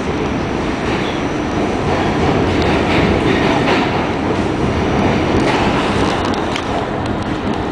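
Pullman Standard R46 subway car running at speed, heard from inside the car: a steady rumble from the wheels and motors, with a few sharp clicks from the wheels over rail joints late on.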